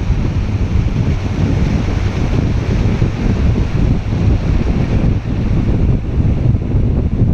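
Strong wind buffeting the microphone, a loud churning low rumble that never lets up.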